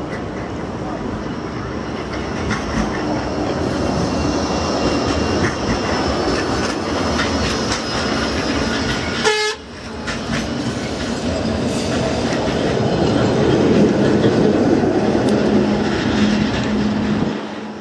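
Bombardier Flexity 2 tram running past close by on street track, wheels rumbling on the rails. A brief sharp sound comes about nine seconds in.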